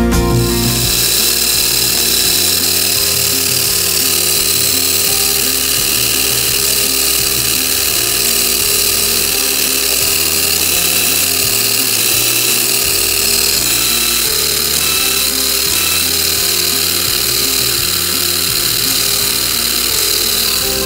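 Small brushed 540 electric motor spinning an opened three-speed RC truck gearbox, a steady whirring whine of motor and meshing gears at constant speed. It starts and stops abruptly.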